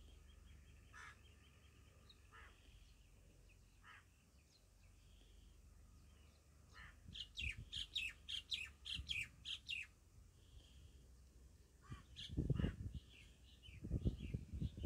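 Birds chirping, with a quick run of repeated high chirps, about four a second, in the middle. Low thuds come near the end and are the loudest sounds.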